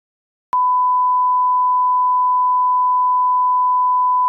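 Steady 1 kHz line-up tone on a broadcast tape leader: one pure pitch that switches on with a faint click about half a second in and holds level without change.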